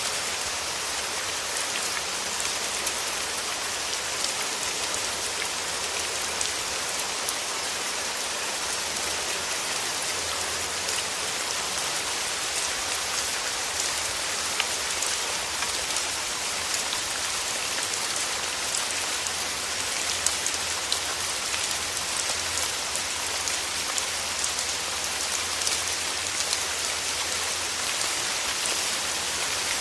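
Steady rain falling on a surface, a continuous hiss dotted with many small drop ticks.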